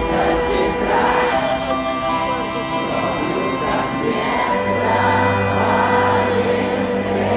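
Live rock band playing over a concert PA to a large outdoor crowd, with many voices singing along.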